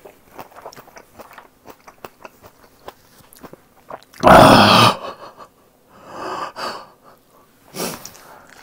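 Close-miked chewing of a mouthful of cold pork trotters in hot mustard dressing, a run of small wet clicks, then about four seconds in one loud, sharp burst of breath, followed by softer heavy breaths, as the mustard stings the nose and makes the eyes water.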